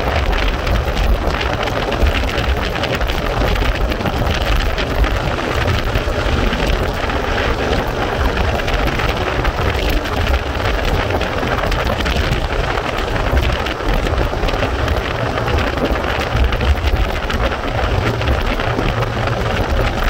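Steady wind buffeting the microphone on a motorcycle riding at speed, with a deep rumble of wind and road noise.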